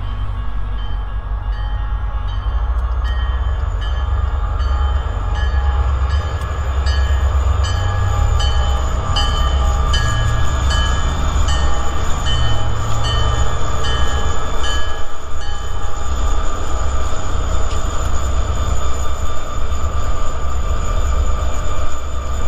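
Railroad grade-crossing bell dinging in a steady rhythm, growing louder and then fading out about fifteen seconds in, over the continuous low rumble of a diesel-hauled freight train.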